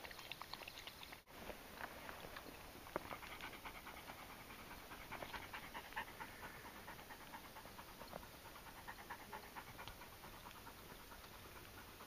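Faint dog sounds: a dog lapping water from a bowl for about a second, then after a short break a dog panting close by.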